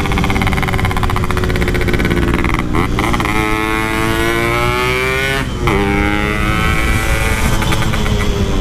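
Two-stroke Yamaha RX-King motorcycle with a Packing Power aftermarket exhaust accelerating through the gears: the engine pitch climbs, drops briefly at gear changes about three and five and a half seconds in, and climbs again each time.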